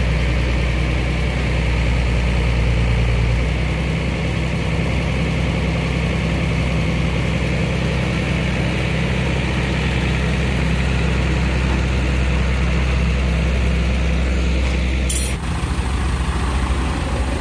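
Heavy vehicle engine idling steadily, with a slight change in its note about three and a half seconds in and an abrupt change near the end.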